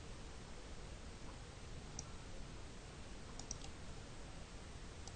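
A few faint computer mouse clicks over low steady hiss: one about two seconds in, a quick run of three about a second and a half later, and two more near the end.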